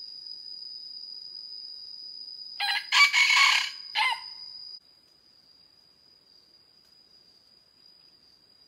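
A red junglefowl rooster crows once, a short crow of about a second and a half, a little under three seconds in. A steady high insect drone runs beneath it and drops away sharply about five seconds in.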